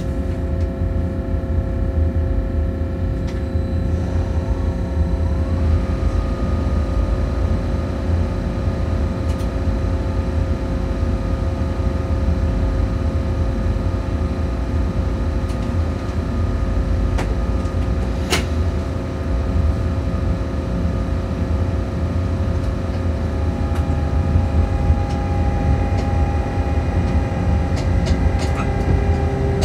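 Train running, heard from inside the driver's cab: a steady low rumble from the running gear, with several steady whining tones over it, one of which steps up in pitch about five seconds in. One sharp click comes about 18 seconds in.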